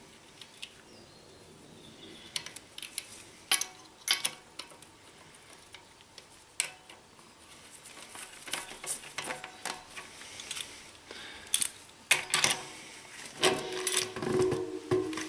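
Steel cassette sprockets and spacers of a Shimano XT 11-40 cassette clinking and tapping as they are slid onto a bicycle freehub body by hand. There are scattered sharp metallic clinks, which grow busier near the end with a brief metallic ringing.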